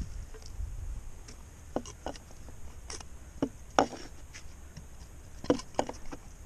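Scattered sharp knocks and clicks from a plastic felling wedge and hands on the bark, as the wedge is set into the back cut of a tree being felled.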